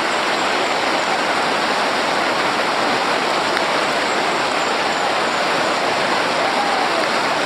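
Rushing river water: a steady, unbroken rush of whitewater.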